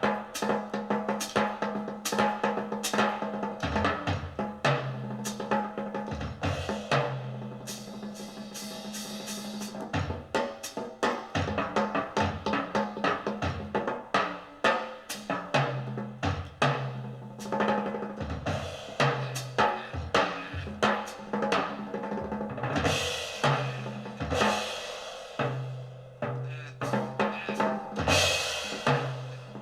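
Jazz drum kit played in a busy, rolling style: rapid snare and tom strokes with bass-drum accents and, in two stretches, a swelling wash of cymbals. Low held notes sound underneath.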